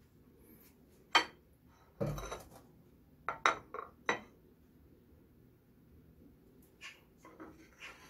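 Kitchenware being handled on a tiled countertop: a sharp clink, then a dull knock with a short scrape, then four quick clinks of a stainless steel bowl and ceramic plates, with a few fainter taps near the end.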